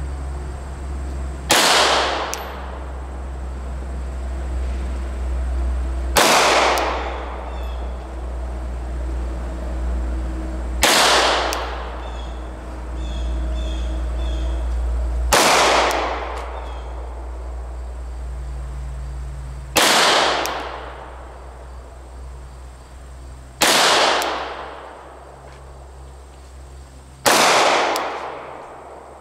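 Gen 5 Glock 19 9mm pistol fired seven times in slow, deliberate single shots about four to five seconds apart, each report a sharp crack with a short echoing tail.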